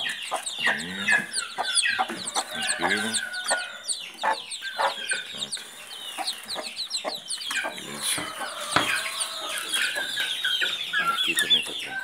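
A hen clucking among a brood of chicks that peep continuously, a dense run of rapid high cheeps over the hen's lower clucks.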